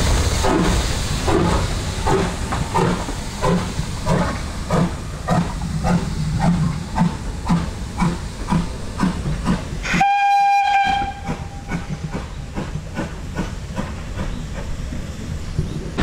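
BR Standard Class 2 2-6-0 steam locomotive 78022 working a train, its exhaust chuffing in an even beat of about two a second. About ten seconds in it gives one short blast on its steam whistle, and the chuffing then carries on more quietly.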